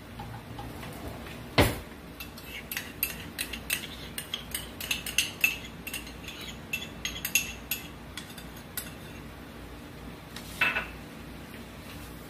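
Cooking utensil clinking and tapping against pans and cookware: a sharp knock early on, then a quick run of light clicks, then another knock near the end.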